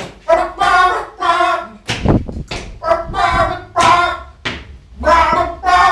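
Unaccompanied young male voices singing in short rhythmic phrases, with a low thump about two seconds in.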